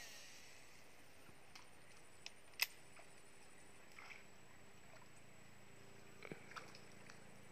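Quiet surroundings with a few faint ticks and one sharp click about two and a half seconds in, as a baitcasting reel is wound in after a cast.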